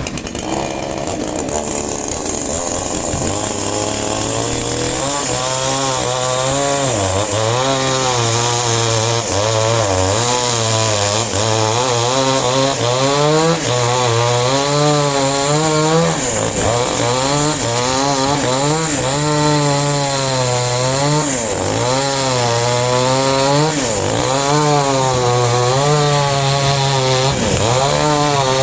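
Power saw cutting into a trembesi log, its pitch wavering and dipping repeatedly as the blade loads up in the wood. It builds up over the first few seconds and then runs loud and steady.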